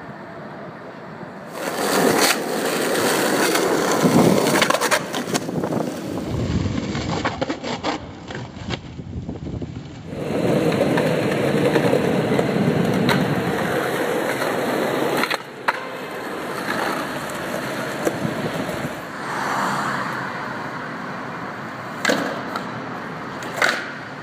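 Skateboard wheels rolling over city pavement, a steady rumble that changes abruptly a few times, with two sharp clacks of the board near the end.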